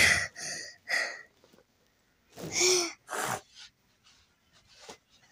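A young girl making short, breathy non-word sounds close to the microphone: three quick ones in the first second, then two louder ones about two and a half and three seconds in, with quiet gaps between.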